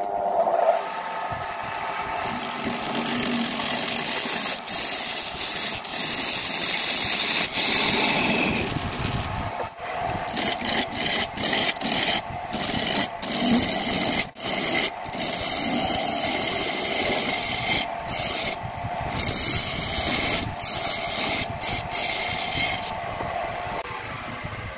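Wood lathe starting up, then a hand chisel cutting into the spinning wood blank in long scraping passes, broken by many short gaps as the tool lifts off. The cutting stops a couple of seconds before the end, leaving only the lathe running.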